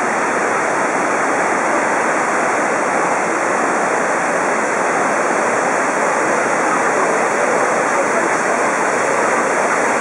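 Kegon Falls, a high waterfall plunging about 1.5 tonnes of water a second into a rocky gorge: a loud, steady rushing of falling water that does not change.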